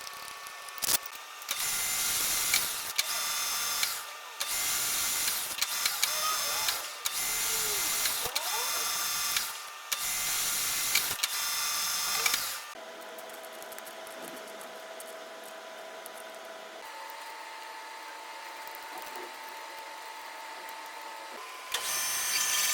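Metal lathe machining: loud stretches of cutting noise, each about two seconds long with brief breaks, then a quieter steady hum of the running machine that steps up in pitch partway through. The loud noise returns near the end.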